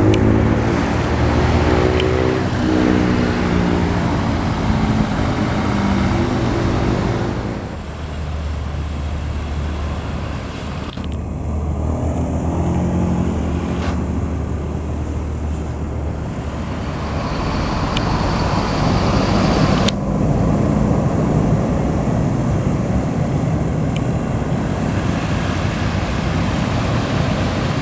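Passing road traffic with engines running. An engine's pitch climbs over the first few seconds as it revs, then a steady low engine hum carries on under tyre and road noise.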